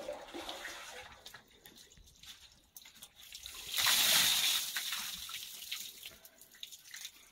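Water poured from a plastic bottle over a person's head and body, splashing loudly for about two seconds from about four seconds in, with fainter drips and trickling before it.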